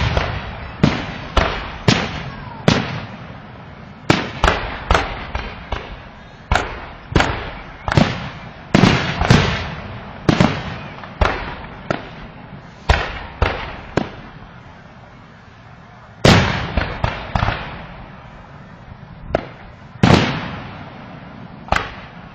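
Fireworks bursting in a rapid series of sharp bangs, each trailing off in a rumbling echo, with short lulls and a loud bang about sixteen seconds in.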